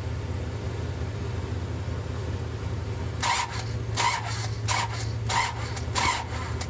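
Five short, evenly spaced bursts from the 1966 Buick Riviera's starter, bumping the engine over a little at a time to bring it to top dead center, over a steady low hum.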